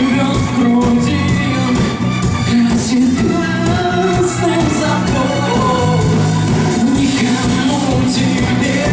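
A live rock band playing loud, with a sung vocal line over a steady, heavy bass.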